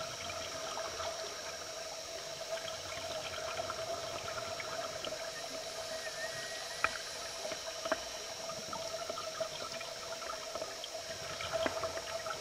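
Underwater ambience on a scuba dive: divers' exhaled air bubbling up from their regulators, over a steady hum with scattered sharp clicks and crackles.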